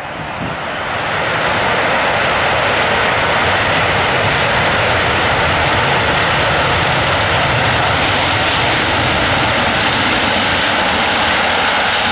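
Four jet engines of an Airbus A380 at high go-around thrust as it passes low along the runway. The noise swells over the first second or so, then holds steady and loud.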